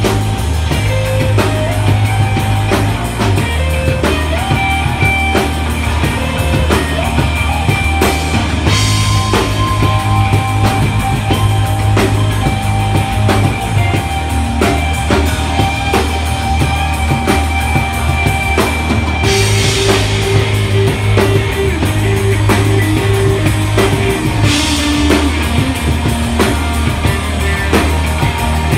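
A rock band playing live: electric guitar, bass guitar and drum kit in an instrumental passage with sustained guitar notes over a steady bass line. Crash cymbals open new sections about 9, 19 and 25 seconds in.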